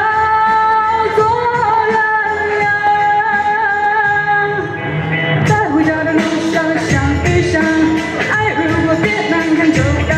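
A singer holds one long note over a pop backing track for about the first four and a half seconds, then the accompaniment carries on alone with drums and cymbals.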